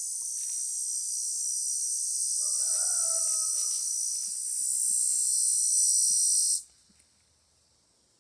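Steady, high-pitched buzzing of an insect chorus that cuts off suddenly about two-thirds of the way through. A single drawn-out call, falling slightly in pitch, sounds about three seconds in.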